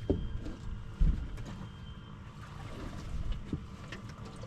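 Wind buffeting the microphone on a small boat as a steady low rumble, with two dull knocks, one at the start and one about a second in.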